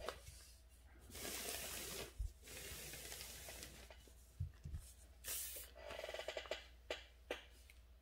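Calligraphy brush drawing strokes across paper: a series of soft, scratchy swishes, one stroke after another, with a few light taps in between.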